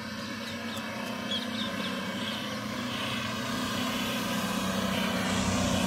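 Mahindra Bolero's 1.5-litre three-cylinder diesel engine running as the SUV drives across a loose dirt field, growing steadily louder as it comes closer.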